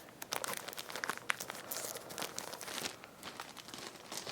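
The small packet holding a spare pair of shoelaces crinkling and rustling as it is handled and opened, a run of irregular small crackles.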